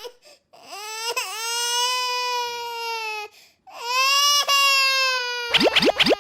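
A child crying: two long wailing cries, then several quick rising sobs near the end.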